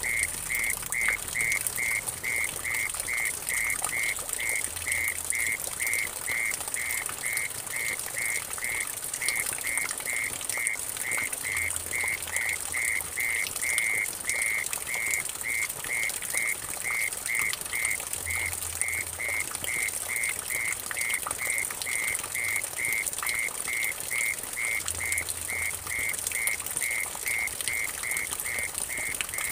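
Mole cricket calling: a steady, evenly pulsed chirping trill, a few pulses a second, over water splashing and trickling into a puddle.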